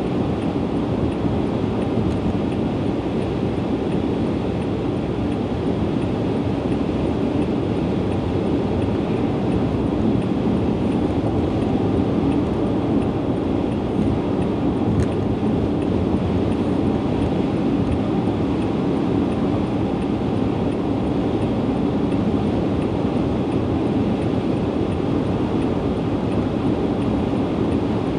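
Steady road and tyre noise heard from inside a car's cabin as it drives along a highway at speed.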